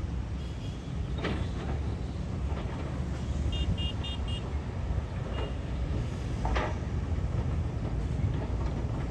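Diesel engines of heavy construction machinery running with a steady low rumble, with several sharp knocks or clanks at intervals. About three and a half seconds in comes a quick run of four short high beeps, like a machine's warning alarm.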